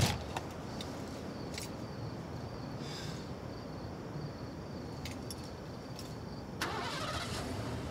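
A car engine running steadily, heard from the driver's seat, with a few sharp clicks and a short rush of noise about two-thirds of the way through.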